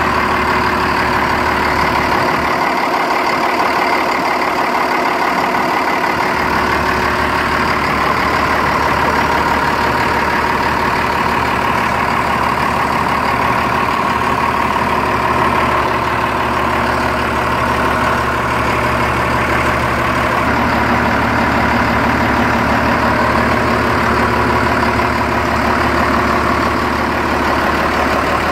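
Cummins diesel engine of an Etnyre K-series chip spreader idling steadily, heard up close in the engine bay, with a steady whine over the engine note.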